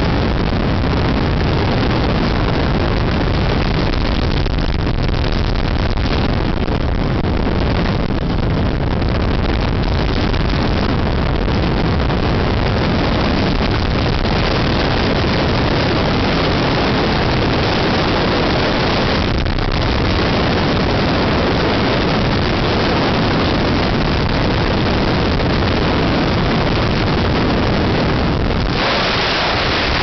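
Light helicopter in flight: steady engine and rotor noise mixed with heavy wind rush through the open, doorless cabin.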